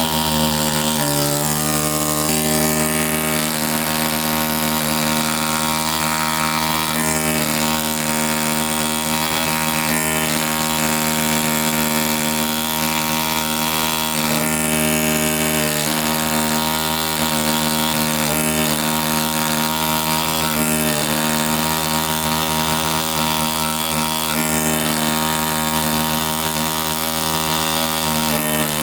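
ZOIC PalaeoTech Bronto pneumatic air scribe running continuously, its reciprocating stylus making a steady buzzing hum with a hiss above it.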